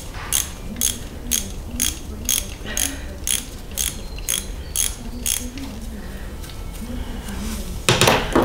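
Hand ratchet wrench clicking in even strokes, about two to three clicks a second, as it backs a bolt out of the vacuum pump mount on a 7.3-liter diesel engine. The clicking stops a little past halfway, and a brief loud clatter comes near the end.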